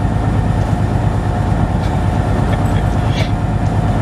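Semi truck's diesel engine running at low speed, heard inside the cab: a steady low rumble with a faint steady whine over it and a few light clicks in the second half.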